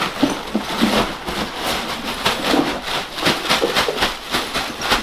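Bagged ice cubes clattering and knocking into a styrofoam cooler, a quick, irregular run of knocks as the ice is shaken and pushed in.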